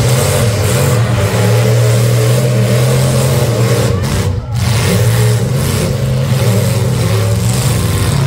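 Full-size demolition derby cars' engines running and revving loudly, a steady drone with a brief drop about halfway through.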